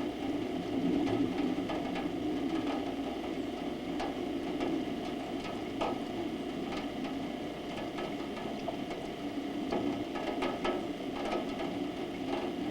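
Rain falling, with scattered drops ticking irregularly on hard surfaces over a steady low hum.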